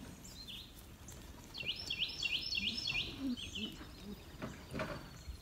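A songbird singing a quick run of about ten high chirps lasting under two seconds, followed by a faint thin whistle. A few soft knocks come near the end.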